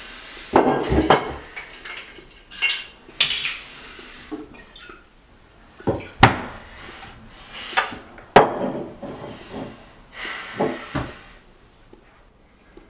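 Irregular knocks and clatter of hands and hard objects against a countertop, with several sharp hits and short rushes of noise between them.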